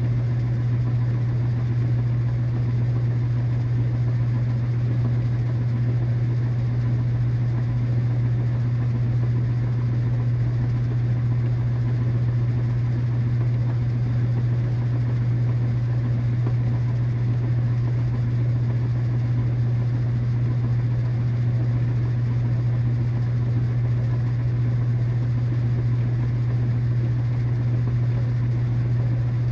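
KitchenAid washing machine running, giving a steady low hum with a wash of machine noise above it and no audible rhythm or change.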